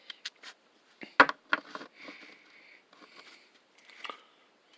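Handling noise from small metal air fittings: a few sharp clicks and taps, the loudest about a second in, with soft rubbing or breathing noise between them.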